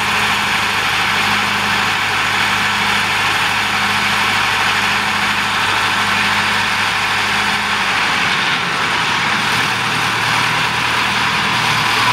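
Diesel farm tractor engine running steadily while its hydraulics tip a loaded trailer to dump soil. Its low engine note shifts about eight seconds in.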